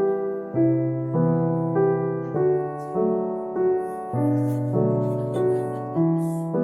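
Piano music: a steady, even run of notes and chords, a new one struck a little under twice a second, each fading before the next.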